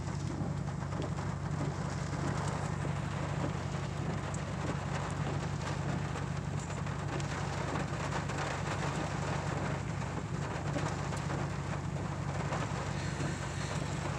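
Rain falling on a pickup truck's windshield and roof, heard from inside the cab, over the steady low hum of the truck's running engine.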